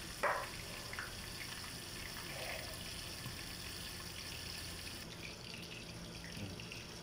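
Steady sizzle of milkfish (bangus) frying in oil in a covered pan. About five seconds in the high hiss drops away and the sound becomes softer.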